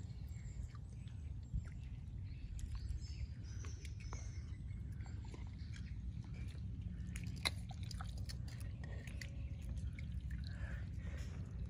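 Mangrove mudflat ambience: many small scattered clicks and crackles with faint bird chirps over a steady low rumble, and one sharper click about seven and a half seconds in.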